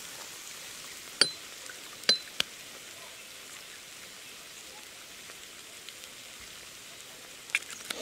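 Clear liquor pouring from a glass bottle into drinking glasses in a steady trickle. Two sharp clinks of glass on glass, each ringing briefly, come about one and two seconds in, then a lighter tap, and a few small clicks come near the end.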